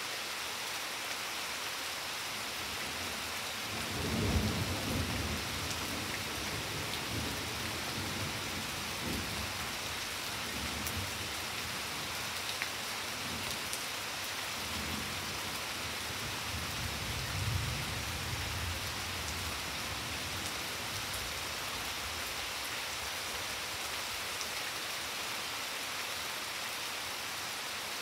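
Steady rain falling on a garden and flagstone patio, with a low roll of thunder that builds about four seconds in, rumbles on, and swells again later before fading.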